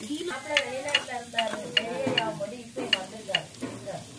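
A small metal ladle stirring chopped onions in a miniature clay pot, knocking and scraping against the clay in irregular clicks, about two a second, over a light sizzle of the onions frying.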